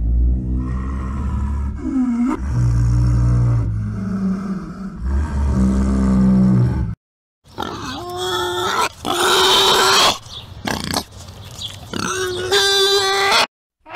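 White tiger giving three long, low growls over the first half. After a short break, a different animal makes a series of higher-pitched calls that waver up and down.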